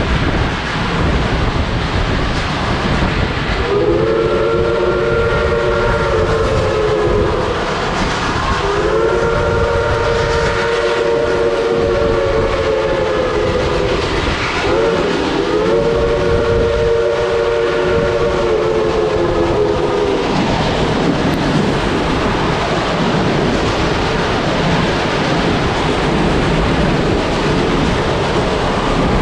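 Chime whistle of a 1928 steam locomotive blowing three long blasts, the second the longest, with several notes sounding together. Under them and after them, the steady rumble and clatter of the passenger cars rolling on the rails.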